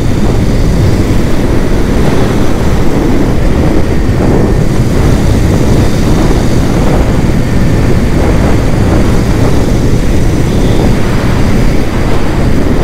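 Loud, steady wind noise on the microphone of a moving motorcycle, with the ride's road and engine noise underneath.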